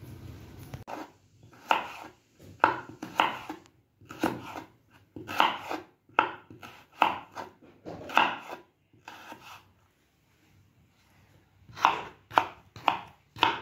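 Kitchen knife slicing raw vegetables, potato among them, on a wooden cutting board. Irregular cuts come about one to two a second, with a pause of about two seconds near the end.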